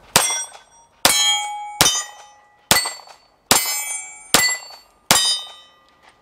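Bersa BP9CC 9mm pistol fired seven times in steady succession, about one shot every 0.8 s. After most shots, steel plate targets ring as they are hit.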